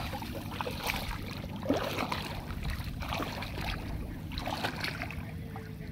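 Shallow paddy water splashing and dripping as a monofilament current net is hauled through it by hand.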